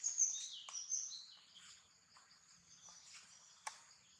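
Birds chirping in a quick run of high, falling notes during the first second or so, over a steady high-pitched insect drone, with a single sharp click near the end.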